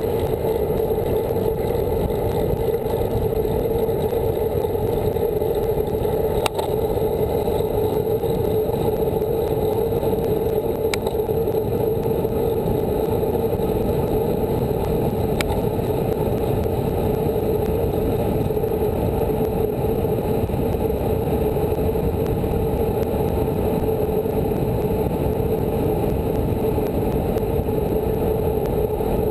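Steady rush of wind and road noise on a bike-mounted camera as a road bike rolls along asphalt at speed, with a few faint ticks.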